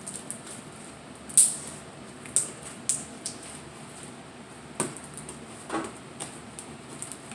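Slime being stirred with sticks in bowls: scattered clicks, taps and short sticky squishes at an uneven pace, the sharpest about one and a half seconds in.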